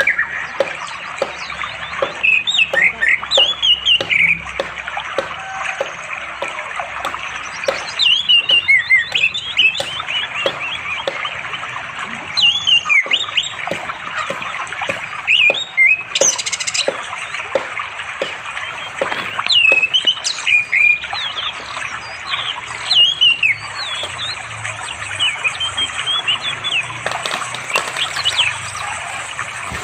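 Orange-headed thrush (anis merah) singing in repeated short bursts of quick whistled and chattering phrases, a few seconds apart, the song of a male calling for a female. A steady rush of a flowing stream runs underneath.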